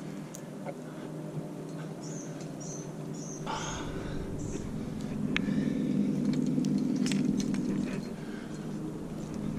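Steady low hum of a motor vehicle engine, swelling louder midway, with a few short high bird chirps a couple of seconds in and scattered light clicks.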